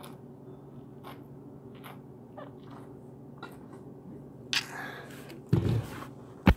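Gulps from a plastic water bottle, with faint clicks of swallowing, then the bottle set down on a wooden table and hands bumping the camera: a scrape, a loud low thump and a sharp knock near the end. A steady low hum runs underneath.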